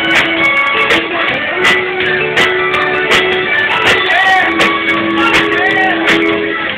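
Live band music: strummed acoustic guitar and sustained, sliding violin notes over drums keeping a steady beat.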